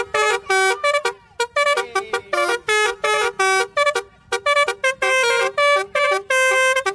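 Telolet basuri bus horn, a multi-trumpet musical air horn, playing a quick tune of short staccato notes, about three or four a second, jumping between a few pitches.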